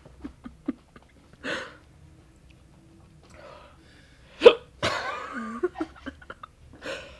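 A man hiccuping several times between gasping breaths, his hiccups brought on by eating hot chilli. The sharpest hiccup comes about four and a half seconds in and is followed by a long voiced exhale.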